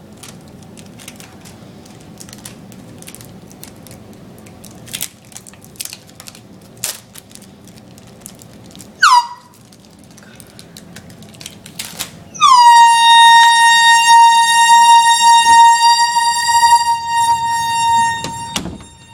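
Handheld air horn: faint clicks and rustling, then a short blast about nine seconds in. About three seconds later it sounds again and blares for about six seconds, a loud, steady high tone with many overtones that dips briefly in pitch as it starts, then cuts off.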